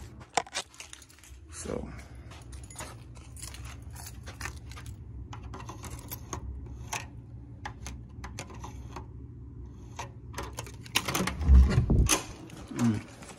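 Keys jangling on a keyring and a scatter of small clicks as a keycard is worked at a hotel room's electronic door lock, over a steady low hum. About eleven seconds in comes a louder low thump as the door is pushed open.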